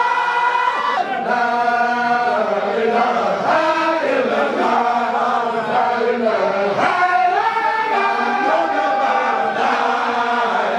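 A group of men chanting together in unison, a Baye Fall sikar (dhikr) sung with hands cupped over the ears. The chant moves in long held notes that step from one pitch to the next.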